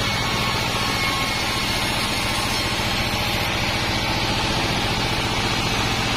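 Diesel engine running steadily with a rapid low throb, driving a sawmill band saw as timber is fed through it.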